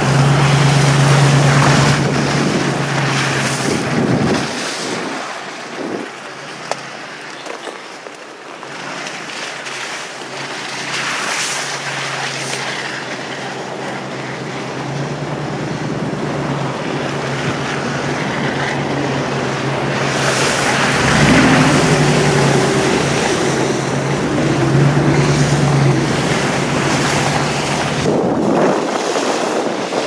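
Four-wheel-drive truck driving through snow and slush: engine hum, tyres churning and splashing through the slush, and wind noise on the microphone. The engine hum fades for several seconds a few seconds in and comes back in the second half.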